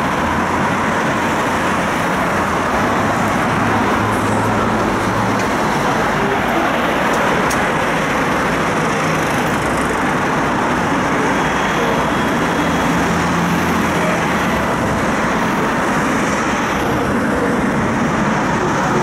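Steady city road traffic with a low hum, heard from aboard a stationary tram.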